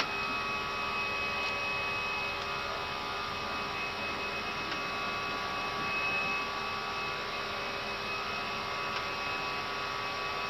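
Steady cockpit noise of an Airbus A320 in climb: an even rushing hiss with a steady hum and a few faint steady whining tones.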